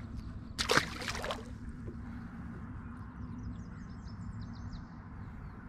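A small largemouth bass released over the side of a kayak and splashing into the lake water about half a second in, one short splash.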